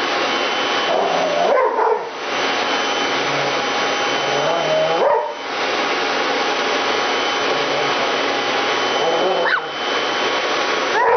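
Vacuum cleaner running steadily with a thin high motor whine, the noise dipping briefly about three times, while a pit bull gives a few short yelping calls over it.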